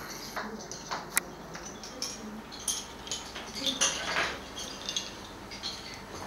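Wooden lace bobbins clicking and clattering against one another in irregular bursts as they are twisted and crossed over roll pillows in bobbin lace making.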